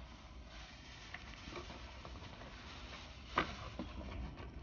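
Quiet background hiss with a few faint clicks and one sharper knock about three and a half seconds in: hands handling mandarin oranges in a plastic tray and box.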